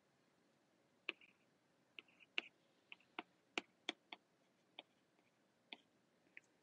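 Stylus tip tapping and clicking on a tablet screen while writing by hand: about a dozen sharp, irregular taps over near silence.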